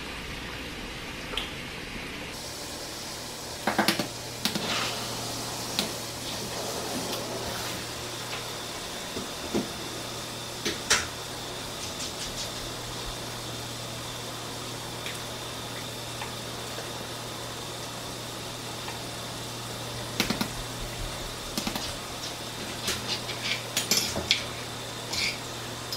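Eggs tapped and cracked against a bowl and the shells handled: scattered sharp clicks and taps, a few about four to eleven seconds in and a quicker cluster near the end. Under them runs a steady hiss of bacon frying.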